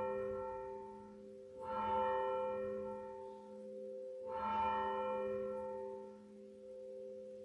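Sanctus bell rung at the consecration of the bread: a church bell struck three times about two and a half seconds apart, each stroke ringing on and slowly fading.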